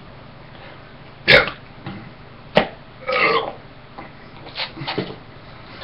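A man's short burp about three seconds in, between two sharp clicks.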